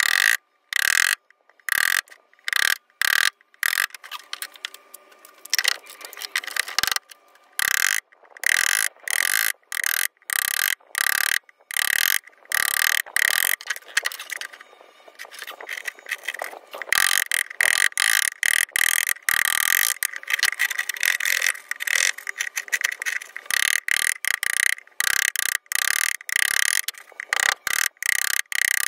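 Woodworking tool noise on wood during assembly, chopped into many short pieces that cut in and out abruptly, with a steady high tone running through them.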